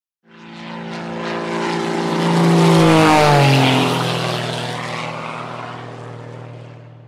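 Propeller airplane flying past: the engine drone swells, drops in pitch as it passes about three seconds in, then fades away.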